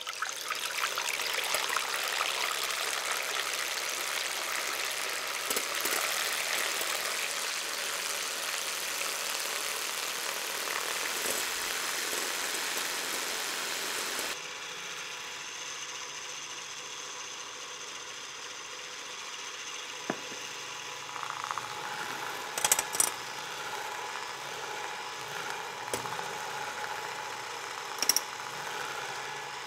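Electric hand mixer whipping egg whites in a glass bowl, its beaters churning the whites to foam and then meringue. The whir is loud at first and drops abruptly to a quieter, steadier hum about halfway, with a few sharp clicks near the end.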